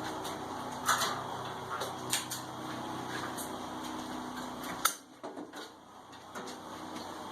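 Westinghouse WGen7500DF portable generator running steadily on propane, with a few sharp knocks and clicks over it. About five seconds in, a sharp knock comes and the engine sound drops away to a much quieter level.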